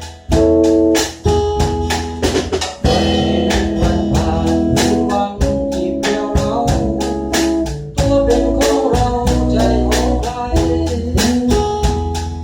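Instrumental band music: guitar and organ-like keyboard over bass and a drum kit keeping a steady beat.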